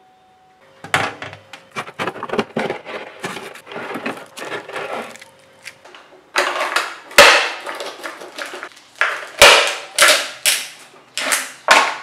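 Ice cubes poured into cut-open plastic drink bottles, rattling and clattering against the plastic. A quick run of small clicks comes first, then several louder pours in the second half.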